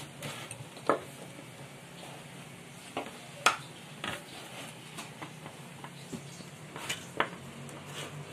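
Wire whisk clinking now and then against the side of a mixing bowl of egg and milk batter, about six separate clicks, over a low steady hum.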